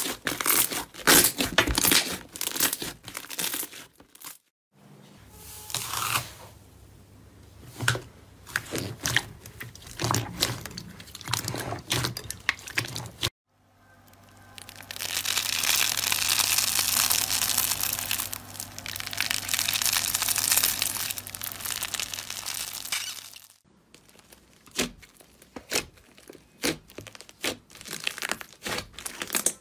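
Hands squeezing, pressing and kneading slime, making sticky crackles and pops of air pockets in a run of short clips. From about a third of the way in to about 24 seconds, a squeezed honeycomb-textured slime gives a dense, continuous crackling, with a faint low hum under it. After that come scattered clicks and pops again.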